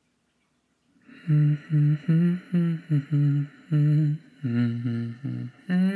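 A man humming a slow tune, a run of separate held notes beginning about a second in.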